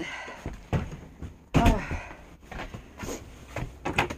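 Footsteps and knocking handling noises of someone walking indoors through a doorway, with a loud thud about a second and a half in.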